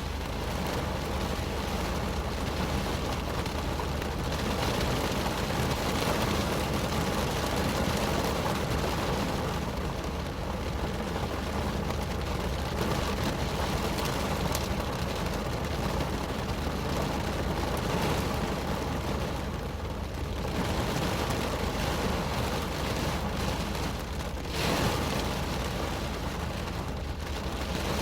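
Rain falling steadily on a car's roof and windows, heard from inside the cabin with a low hum underneath. A brief louder rush comes near the end.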